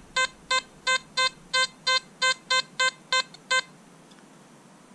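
XP ORX metal detector giving its target signal: a quick string of short, identical beeps, about three a second, as the search coil sweeps back and forth over a piece of lead reading a target ID in the high 50s. The beeps stop about three and a half seconds in.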